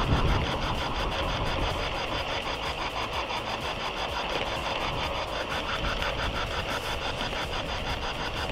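G-scale model locomotive's electric motor and gear drive running steadily along the garden track, heard close up from the moving train, with a rapid, even ticking and a steady high whine.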